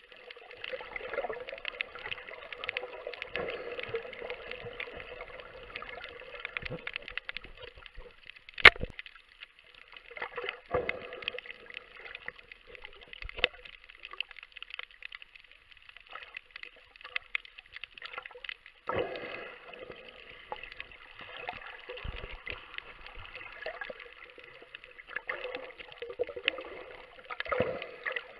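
Underwater bubbling and gurgling that comes in stretches of a few seconds with quieter gaps between them. It is broken by several sharp clicks, the loudest about nine seconds in.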